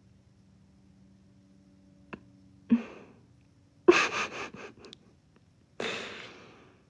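A woman's breathy laughter through the nose: three short bursts of breath about a second apart, the loudest one in the middle broken into a few quick puffs, over a faint steady hum.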